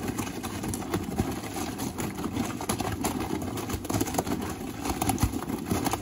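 Top-loading AEG washing machine running mid-wash with its lid open: the motor turns the drum, and the wet laundry and water tumble inside with a steady churning noise and scattered small knocks.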